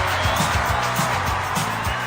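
Music with a steady beat and a bass line, about two beats a second.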